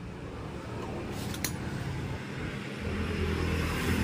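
A motor vehicle engine running and growing louder, with a single sharp click about a second and a half in.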